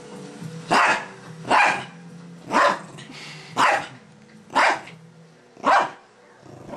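Small fluffy dog barking six times, about one bark a second, while playing with a plush toy.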